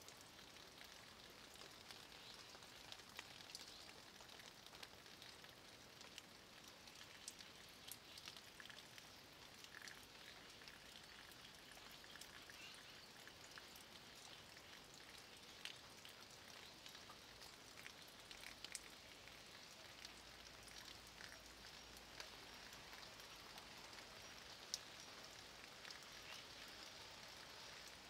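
Light rain falling on a dry-stone wall: a faint, steady patter of drops with scattered sharper ticks of single drops hitting the stones.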